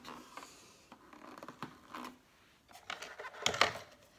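Plastic parts of a Cuisinart food processor being handled: light clicks and scrapes as the locking work bowl is set onto the motor base, with a louder clatter of plastic about three and a half seconds in.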